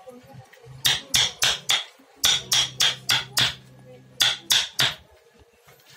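Hammer blows in quick runs: four strikes, then five, then three, about three a second.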